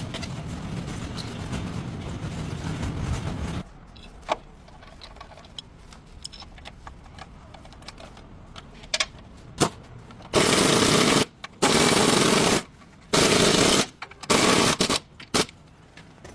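Impact wrench running in four rapid-rattling bursts of about a second each in the second half, working on the stabilizer link fasteners. Before that, a steady rushing noise stops abruptly about four seconds in, followed by a few light clicks.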